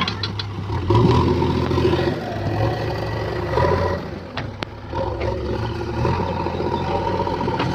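JCB 3DX backhoe loader's diesel engine running, its level swelling and dipping with the load, with a few sharp knocks of metal.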